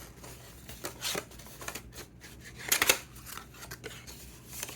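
Hands handling a cardboard watch box and its paper packaging: a few short scraping and rustling sounds, the loudest a little under three seconds in.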